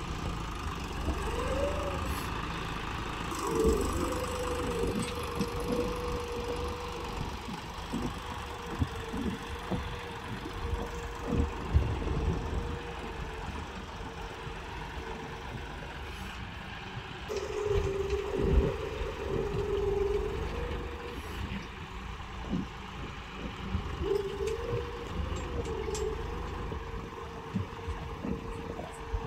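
John Deere 5405 tractor's three-cylinder diesel engine running under load while pulling a single-tyne subsoiler through hard ground. Its steady note dips lower for a few seconds past the middle and shifts again near the end.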